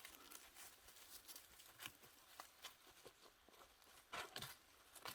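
Faint, scattered crackles and rustles of leaf litter and twigs being stepped on and disturbed, with a louder cluster of snaps about four seconds in.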